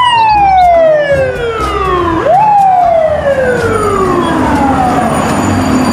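Fire-engine siren wailing twice. The tone falls steadily for about two seconds, jumps back up and falls slowly again for about three seconds.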